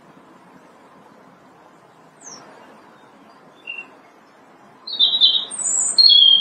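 European robin singing: a couple of faint, thin high notes, then a loud burst of high, quick warbling notes near the end.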